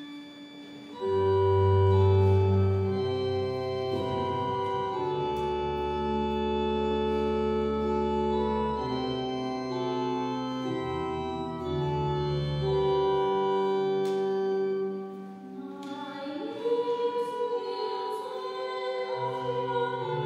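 Church organ playing slow held chords, starting about a second in, as the introduction to the responsorial psalm. Near the end a singing voice joins in.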